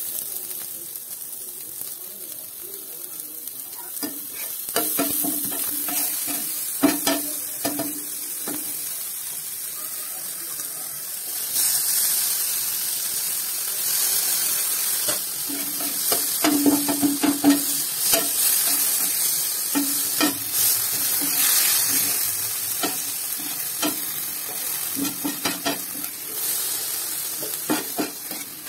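Chopped onions and tomatoes sizzling in hot oil in a pan, with a spatula scraping and knocking against the pan many times as they are stirred.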